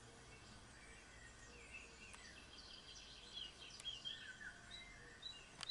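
Faint songbird chirps and twittering, scattered short calls over a quiet hiss, more frequent from about two seconds in; a sharp click just at the end.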